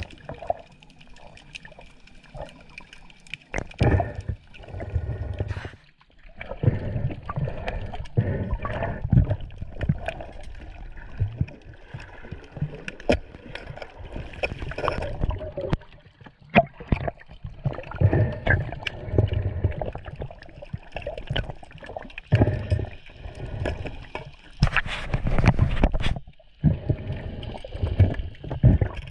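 Seawater sloshing and gurgling close to the microphone in uneven surges, with a few sharp clicks.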